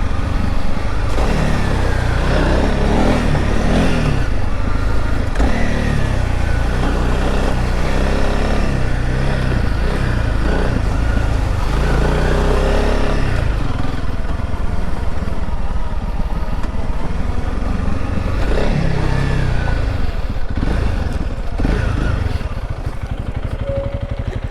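Honda CRF300L Rally's single-cylinder four-stroke engine under way off-road, revving up and down with the throttle, with clattering from the bike over rough ground. It eases off to a lower, steadier beat in the last few seconds.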